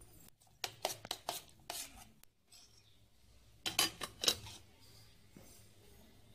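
Metal spoon knocking and scraping against a steel bowl and a wire-mesh strainer: a quick run of sharp clinks in the first two seconds, then two louder knocks about four seconds in.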